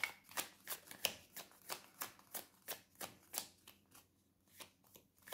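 A deck of tarot cards being shuffled by hand: a quick run of short card slaps, about three a second, thinning out near the end.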